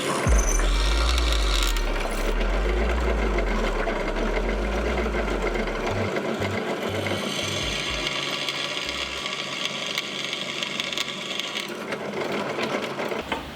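A small electric power tool's motor running steadily while it works the material.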